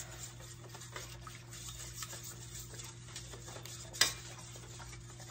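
Metal spoon stirring melted margarine and garlic in a metal pan, with light repeated scraping and clinking against the pan and one sharper clink about four seconds in.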